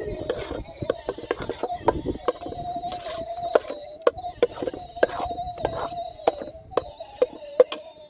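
Metal ladle stirring thick food in a metal cooking pot over a wood fire, clinking and scraping against the pot's sides and bottom in a run of irregular sharp clicks, a few each second.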